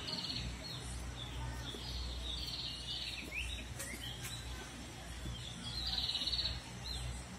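Small birds singing in short bursts of rapid, high trilled notes, three phrases a few seconds apart, with a couple of quick falling chirps in between, over a steady low background rumble.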